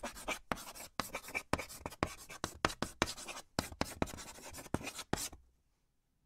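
Chalk writing on a chalkboard: a rapid run of short scratching strokes and taps, stopping about five seconds in.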